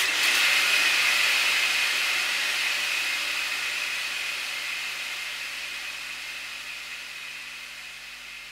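A steady hiss that starts abruptly and slowly fades away over several seconds.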